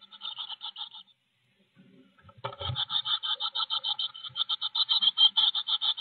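Blue tit nestlings about 18 days old begging in the nest box with rapid, high-pitched chirping, about eight calls a second. The chirping breaks off for about a second and a half near the start and comes back loud at about two and a half seconds, while an adult is at the nest feeding them.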